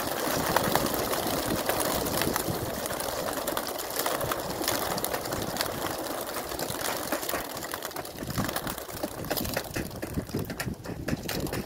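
A large flock of racing pigeons taking off together from their transport crates: a dense, rapid clatter of flapping wings, loudest at first and thinning out over the last few seconds as the birds fly off.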